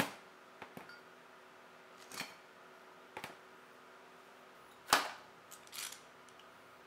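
Steel F-clamps being handled on a table: a series of irregular sharp metal clicks and clacks, the loudest about five seconds in.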